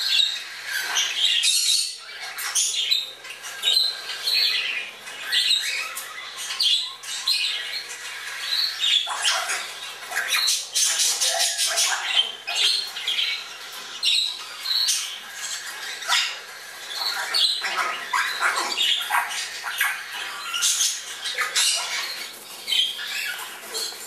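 Fledgling Congo and Timneh African grey parrots squawking and calling, a busy, unbroken string of short squawks and rising and falling whistles.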